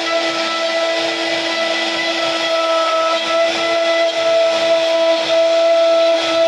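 CNC router spindle running with a steady whine while its small carving bit cuts relief into a wooden door panel, with a hiss of cutting noise underneath.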